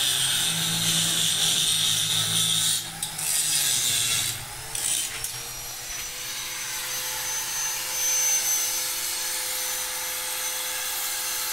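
Electric angle grinder grinding steel railing bars with a rough, scraping sound for the first few seconds, then running with little or no load as a steady whine from about five seconds in.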